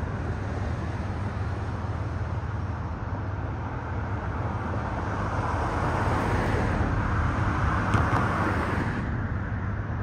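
Steady road traffic noise with a low rumble, growing louder for a few seconds in the second half.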